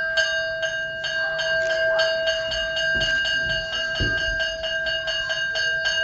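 A metal bell struck rapidly and evenly, about five strokes a second, its ringing tones held under the strokes. Two low thuds come around three and four seconds in.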